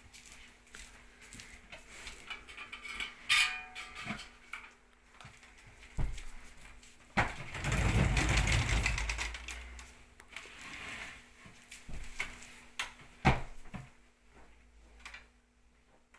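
Cushions and fabric covers rustling and thumping as they are handled and stacked, with scattered knocks and a short scrape about three seconds in. From about seven to ten seconds there is a longer, louder rush of noise with a low rumble, as if a cover were shaken or a cushion dropped.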